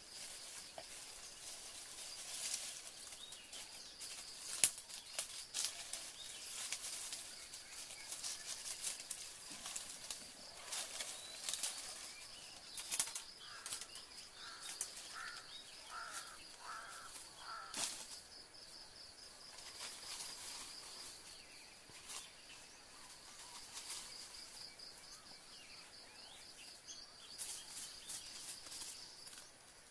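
Dry leaf litter and twigs rustling and crackling under bare feet and hands as sticks are gathered, in irregular scuffs and snaps. A steady high insect drone runs underneath, and a bird gives five short notes about halfway through.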